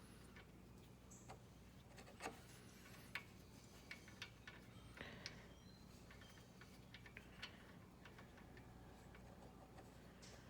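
Near silence: a low steady hum with a few faint, irregular clicks and taps, the loudest about two and three seconds in.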